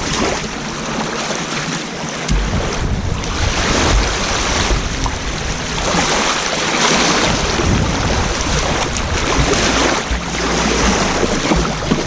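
Wind buffeting the microphone in irregular low gusts over the steady wash of small river waves lapping at the sandy shore.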